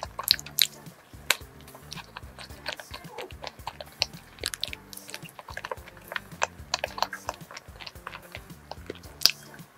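Close-miked biting and chewing of a crumb-coated cream salt bread: many sharp, crackly clicks and moist mouth sounds, over soft background music. Near the end she takes a sip from a glass.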